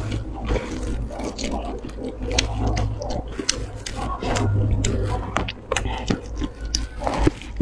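Close-miked chewing of crispy pan-fried flatbread: wet mouth sounds broken by many sharp crunches and clicks.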